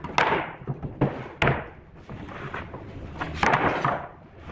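Pine boards being set down and shifted on a wooden worktable: three sharp wood-on-wood knocks with scraping and rubbing between them.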